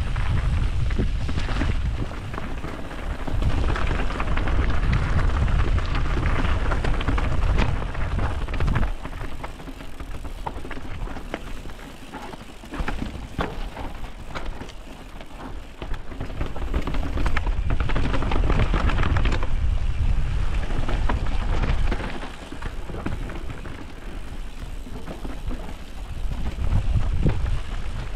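Mountain bike riding fast down a rocky track: tyres crunching over loose stones and the bike rattling and knocking, under a heavy rumble of wind buffeting the microphone. It eases off for a stretch in the middle and again near the end.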